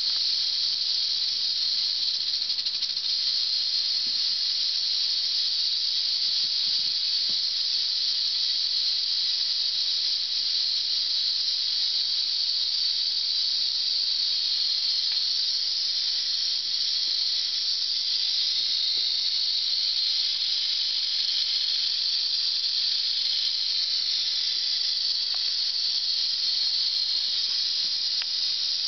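Western diamondback rattlesnake (Crotalus atrox) rattling its tail in a steady, unbroken high buzz, its defensive warning.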